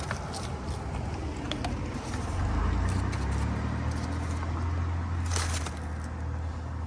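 A motor vehicle's engine rumble that swells for a few seconds and then fades, with scattered light clicks.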